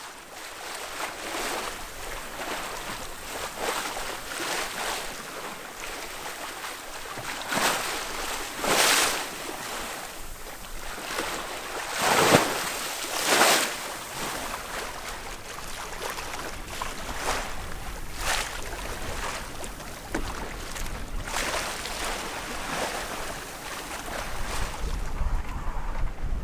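Sailboat under sail in strong wind: water rushing and splashing along the hull in repeated surges, the loudest two a little before the middle. Near the end a low wind rumble on the microphone takes over.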